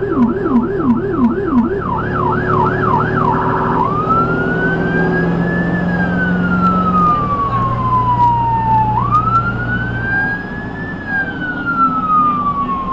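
Ambulance siren heard from inside the cab: a fast yelp of about three sweeps a second changes, about three seconds in, to a slow wail that rises and falls twice.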